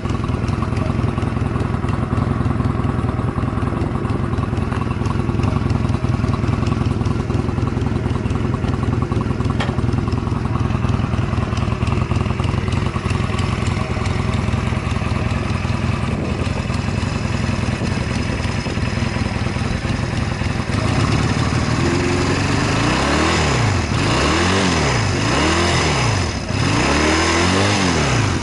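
Honda Rebel 250 (MC13) air-cooled parallel-twin engine idling steadily on its stock exhaust, then blipped up and back down about five times near the end. It revs up cleanly with no abnormal noises.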